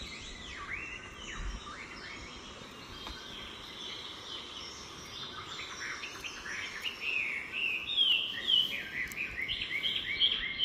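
Wild birds chirping and singing: short sweeping high chirps, coming quicker and busier in the second half.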